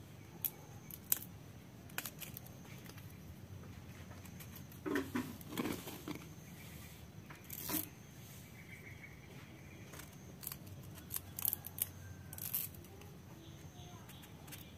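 Small knife cutting and scraping the fibrous sheath at the base of a coconut bonsai's shoots, with fibre being peeled off by hand. Short sharp cuts and crackles come in irregular bunches, busiest about five seconds in and again between eleven and twelve seconds.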